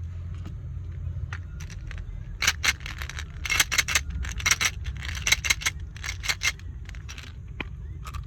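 A rapid, irregular run of sharp clicks and crackles from small hard objects being handled, starting about two seconds in and easing off near the end, over a low steady hum.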